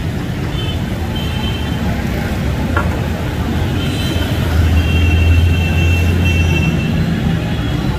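Street traffic noise: a low rumble that swells about halfway through as a heavy vehicle passes. Under it is the hiss of liquid sizzling and steaming on a hot iron takatak griddle.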